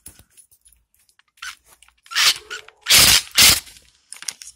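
Scraping and crunching handling noises as a loose plumbing fitting is tightened by hand and tool. There are a few harsh scrapes, and the loudest two come about three seconds in.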